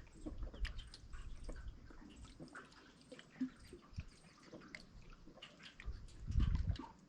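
Water trickling and splashing in many small irregular drips and plinks, with a low rumble swelling briefly about six seconds in.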